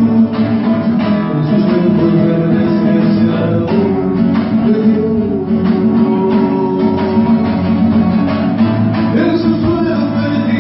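Acoustic guitar played live, steady and continuous, with a man singing over it.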